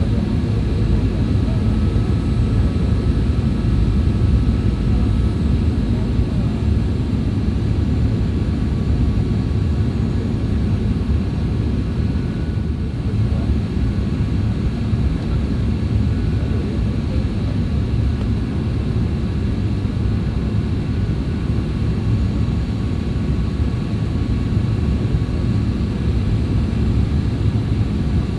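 Steady engine and airflow noise inside the cabin of a Boeing 737-800 airliner in flight: an even, deep rumble with a few faint steady tones above it.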